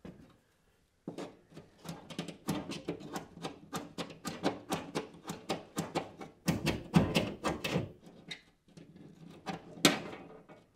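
A stiff wire fish being worked inside a drywall cavity through a small hole, scraping and tapping against the sheetrock in a rapid, irregular run of clicks and knocks. It starts about a second in, is busiest about two-thirds through, and ends with one sharp knock.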